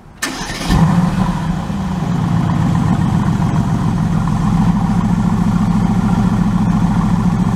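Mercedes-AMG GT S's 4.0-litre twin-turbo V8 starting up: a brief crank, then it catches with a loud flare of revs about a second in and settles into a steady idle.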